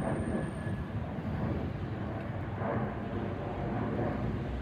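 Gulfstream G-V business jet's twin Rolls-Royce BR710 turbofans, heard from the ground as it climbs out after takeoff: a steady jet rumble, with a faint thin whine that fades out about a second in.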